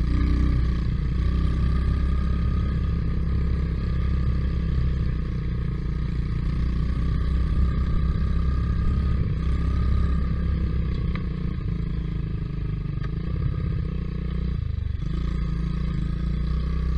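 Quad bike engine running steadily while riding, with a brief dip in the engine sound near the end, at a gear change or a lift off the throttle.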